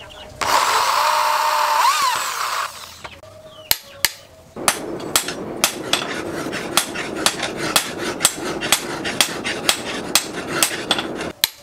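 A power drill runs for about two seconds, its whine briefly rising near the end. Then a hammer strikes a cold chisel held on a steel anvil, about two to three blows a second, cutting short rivet pins from a steel rod.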